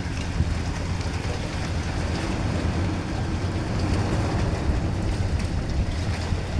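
Strong wind buffeting the microphone over choppy sea water slapping around a boat, with a low steady drone underneath.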